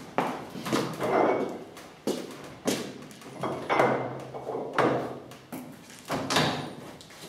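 Irregular wooden knocks and scrapes, roughly one a second, from the long wooden lever and beam of a hand-worked screw olive press being hauled round and refitted.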